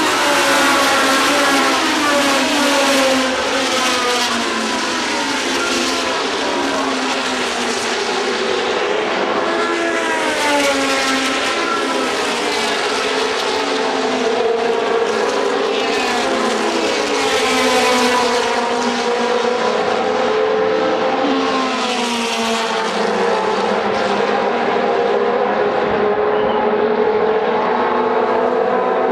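Several historic Formula 1 racing cars going by at speed, their engines revving with pitches that climb through the gears and swoop down as they pass, one car over another.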